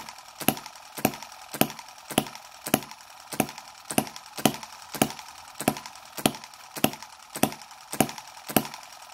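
Microcosm M17 1.6cc model hit-and-miss engine running, with sharp, evenly spaced firing pops a little under two a second. The mixture has been set quite rich.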